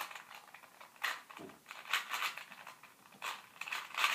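2x2 Rubik's Cube being turned by hand: its plastic layers click and clack in short strokes about a second apart, with a few turns bunched together near the end.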